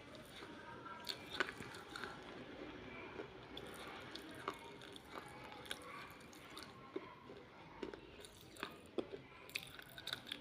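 Pieces of baked clay pot being bitten and chewed: irregular sharp crunches and grinding, with a dozen or more distinct crunches.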